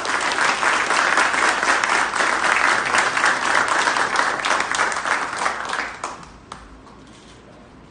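Audience applauding, a dense steady clapping that dies away about six seconds in, leaving a few stray claps.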